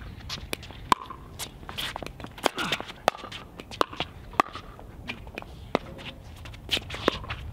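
Pickleball rally: paddles popping against the plastic ball, a sharp hit about once a second, with shoes scuffing on the hard court.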